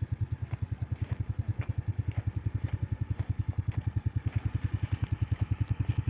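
Small engine running steadily, with an even putt-putt of about nine pulses a second.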